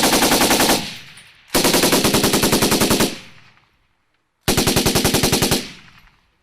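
Machine gun firing three bursts at about ten rounds a second: one burst cuts off just under a second in, a longer burst of about a second and a half follows, and a shorter one starts midway through.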